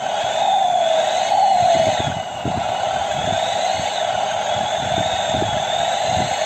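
Basuri horn sounding a wavering melody, its pitch sliding up and down.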